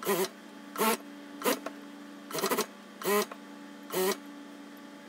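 Industrial straight-stitch sewing machine run in six short bursts, the motor briefly speeding up and slowing each time, as the folded binding is stitched down around a stretch-knit neckline a few stitches at a time. A steady low hum continues between the bursts.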